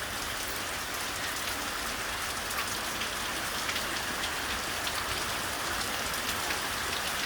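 Heavy rain falling steadily, with many sharp drips and splashes from water spilling over roof gutters that are full and blocked.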